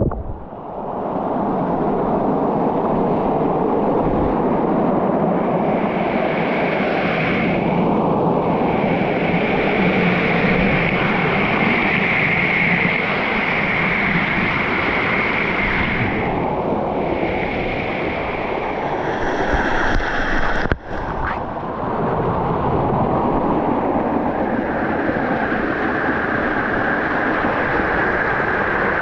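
Mountain stream water rushing over rocks in a steady, loud rush, with a higher hiss above it that fades out briefly twice. A single sharp knock comes about three-quarters of the way through.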